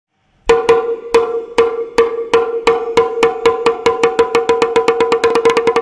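Small Xoan ritual drum struck with sticks, each stroke giving a sharp crack and a ringing pitched tone. The strokes start about half a second in and speed up steadily into a fast roll.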